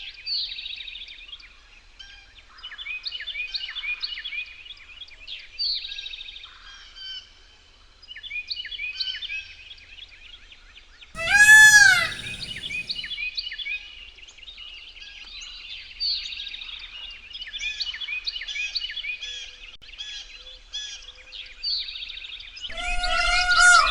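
Indian peafowl (blue peacock) giving one loud, arching call about eleven seconds in, with another loud call starting near the end, over continuous chirping of small songbirds.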